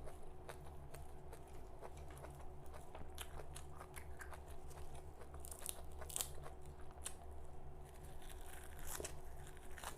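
Close-up mouth sounds of someone biting, crunching and chewing raw vegetables, with irregular crisp crackles, over a steady low hum.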